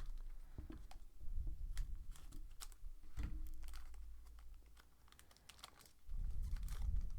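Crinkling and clicking of a trading-card pack wrapper being torn open and the cards handled, with a few low bumps on the table.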